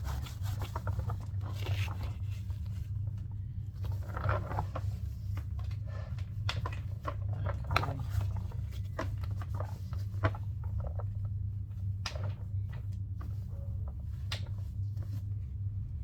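Cloth rubbing and wiping over the plastic body of a Numatic Henry vacuum cleaner, with scattered light clicks and knocks as it is handled, over a steady low hum.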